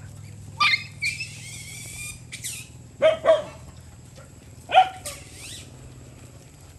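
Dogs squabbling over a food bowl: a few short, sharp barks and yelps, with two loud ones in quick succession about three seconds in and another near five seconds, and higher-pitched yelping between them.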